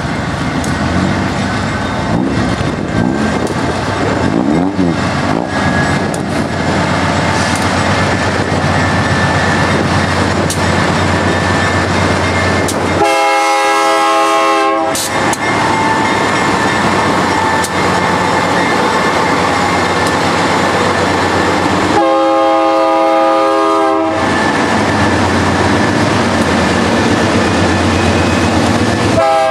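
GE Dash 9 diesel locomotives passing under power, a steady engine drone with wheels rolling on the rails. The lead unit's K5LA five-chime air horn sounds two long blasts, about halfway through and eight seconds later, and a third starts at the very end: the horn signal for the grade crossing ahead.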